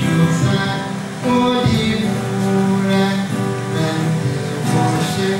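A man singing a Chinese Christian song in Mandarin into a microphone while playing an acoustic guitar.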